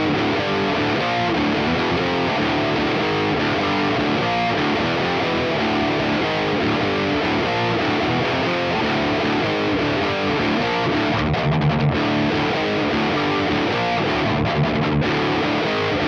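Parker Fly Deluxe electric guitar with its stock DiMarzio pickups, played through an overdriven Diezel VH4 amplifier and a Mesa Boogie 4x12 cabinet loaded with Celestion Vintage 30 speakers. It plays a steady stream of quickly changing notes, with brief low chugs about eleven and fourteen and a half seconds in.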